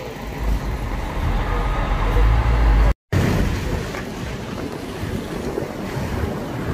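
Wind buffeting the microphone over road and traffic noise, with a heavy low rumble in the first three seconds. The sound drops out for a moment about three seconds in, then goes on as a steady rush of wind and road noise from a moving car.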